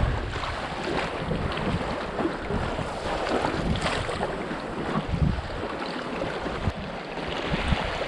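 Wind gusting over the microphone while choppy lake waves splash around a canoe.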